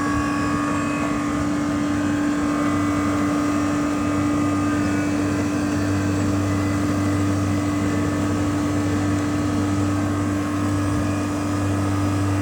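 1979 Mitsubishi heat-and-cool air conditioner running with its newly fitted Bristol reciprocating compressor: a steady hum with a constant low drone. It runs evenly, and the owner says it sounds good and is getting cold.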